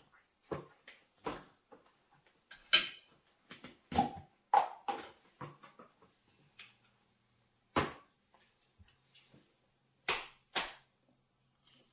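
Scattered sharp taps and clicks, about a dozen with quiet between, the loudest about three seconds in: eating and the handling of food and a plastic sippy cup at a baby's high chair tray. A faint low hum comes in during the second half.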